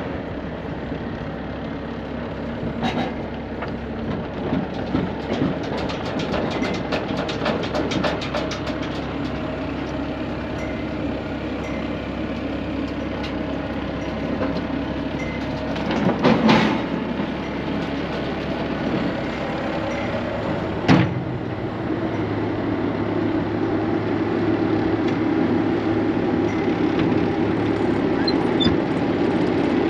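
Loader engine running steadily while its steel rock bucket pushes snow, with rattling clicks for several seconds early on and two sharp loud knocks, at about 16 and 21 seconds in. The engine grows louder near the end.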